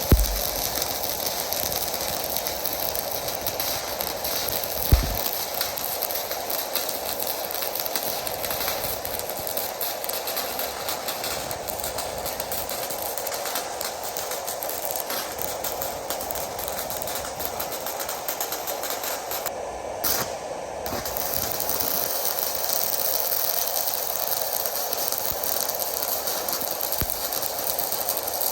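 Fitinhot handheld stick welder's arc crackling and hissing steadily as the rod burns in, with a few faint knocks. The high hiss drops out for about a second roughly twenty seconds in.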